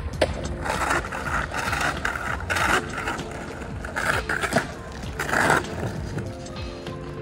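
Skateboard doing freestyle tricks on flat stone paving: the wheels roll and scrape across the tiles in passes, with several sharp clacks as the board's tail and wheels strike the ground.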